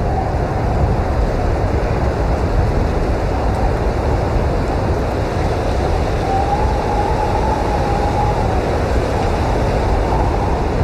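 Blizzard wind blowing hard and steadily with a deep rumble. A faint whistling howl swells about six seconds in and fades a couple of seconds later.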